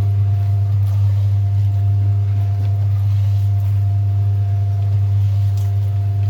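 Livestock feed mixer machine running with a steady, even low hum.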